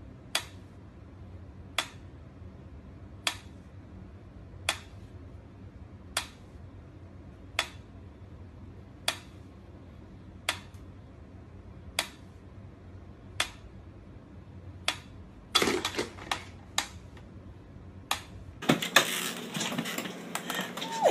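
Mechanical pyramid metronome ticking slowly and evenly, about one tick every second and a half. About fifteen seconds in, a quick flurry of faster clicks breaks the beat, and near the end a louder, noisier rustling takes over.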